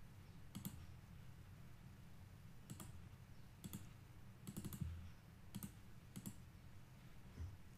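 Faint computer mouse clicks, about eight spread out over a few seconds, a couple in quick pairs, as dialog buttons and a checkbox are clicked.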